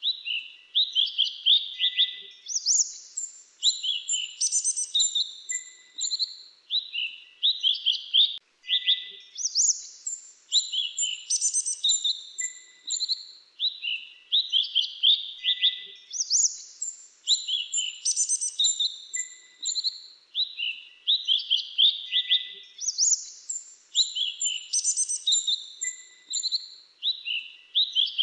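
Grey-chinned minivet calling, with rapid runs of high, thin chirps. The phrases build to a dense burst about every seven seconds.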